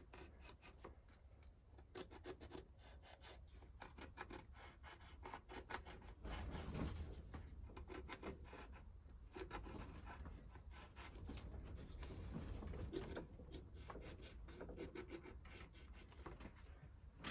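Pencil scratching on a planked wooden model-ship hull, many short faint strokes, as the square gun-port holes of a paper template are traced onto the wood.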